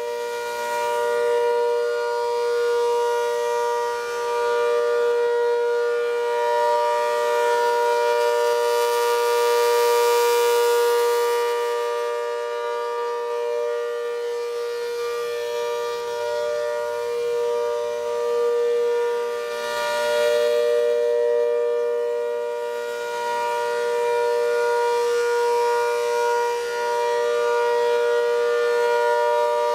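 ACA Hurricane rotating horn siren sounding a steady tone during its monthly test. The pitch holds level throughout, and the sound swells and fades, growing brighter twice, as the horn sweeps round toward and away from the listener.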